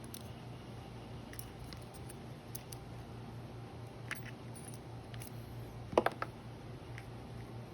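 Handling noise as an Acetech Blaster tracer unit is twisted onto an airsoft pistol's threaded muzzle adapter: faint scrapes and small clicks, with one sharp click about six seconds in.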